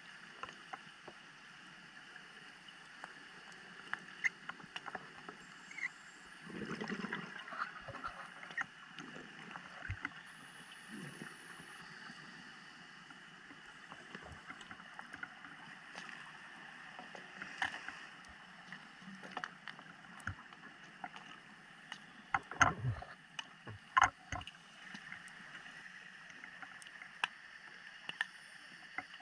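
Underwater ambience through a dive camera's housing: a steady hiss with scattered sharp clicks and crackles. A low gurgling rush comes about a quarter of the way in, and a cluster of louder clicks and knocks comes about three quarters through.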